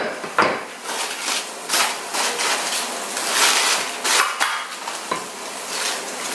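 Aluminium foil crinkling and tearing as it is cut and peeled open around a baked pork loin in a roasting tray, in irregular crackly bursts, with a knife scraping against the foil.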